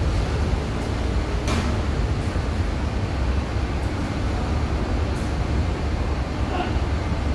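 Steady low rumble of a docked car ferry's engines running, with a short click about one and a half seconds in.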